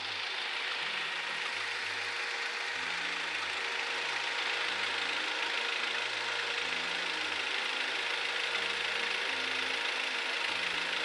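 Mitsubishi Adventure engine idling steadily with the radiator cap off and the air conditioning on, being warmed up so the thermostat opens during a coolant flush.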